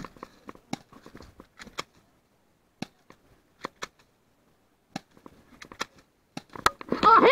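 Scattered, irregular sharp clicks and cracks of airsoft pistol fire around the player, then a short loud shout near the end.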